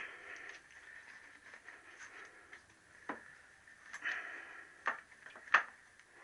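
A cloth rag rustling as it is pushed and tucked into an open motorcycle crankcase, with a few light clicks and knocks against metal, the sharpest near the end.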